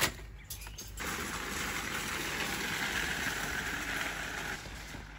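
Empty metal shopping trolleys rolling over paving stones, a steady rattle that starts about a second in and stops suddenly near the end. A single sharp knock comes at the very start.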